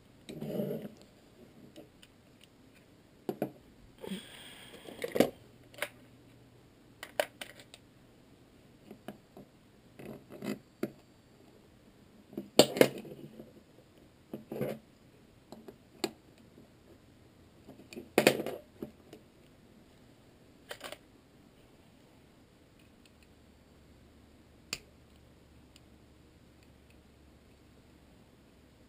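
Scattered clicks, taps and short scrapes of gun parts being handled during cleaning, with a brief rubbing sound about four seconds in. The handling stops a little past twenty seconds in, leaving quiet room tone.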